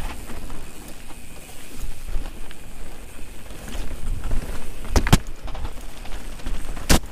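Mountain bike riding fast down a dirt forest trail: a steady rumble of wind on the camera microphone and tyres on the ground, with the bike rattling. There are two sharp knocks, about five and seven seconds in.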